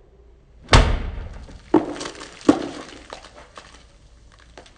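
A plastic two-litre soda bottle burst with one sharp, loud bang that fades over about a second. It is followed by two more sharp knocks about a second apart and a few lighter clicks.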